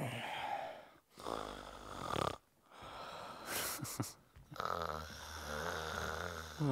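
A man snoring loudly and theatrically: a string of rasping, drawn-out snores about a second long each, the last one longer, made by an actor playing someone asleep.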